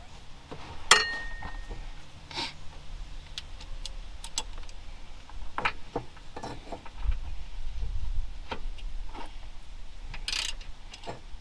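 Metal hand tools and bolts clinking and knocking at irregular intervals, with one sharp clink about a second in that rings briefly.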